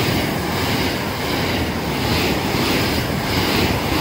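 A JR West Shirasagi limited express electric train passing close by at speed: a steady rushing of wheels on rail, with a regular beat about twice a second.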